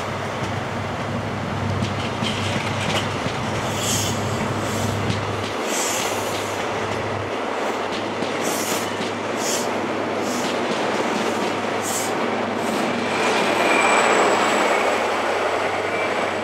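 CrossCountry HST departing past the platform: a low diesel hum for the first few seconds, then regular clicks of the wheels over the rail joints as the coaches roll by. It gets louder near the end as the rear power car passes, with a thin wheel squeal.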